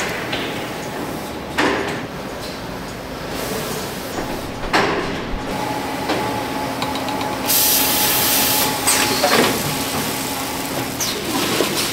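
Snack-making machinery running with a steady hum, broken by several sharp metal clanks. Just past halfway there is a rush of hiss lasting about a second.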